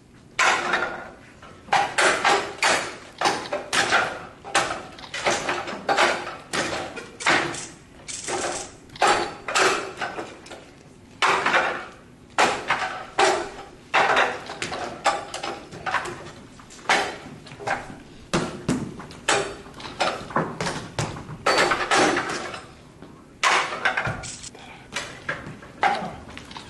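Hands and forearms striking a Wing Chun wooden dummy: sharp wooden knocks, several a second in uneven short runs with brief pauses between them.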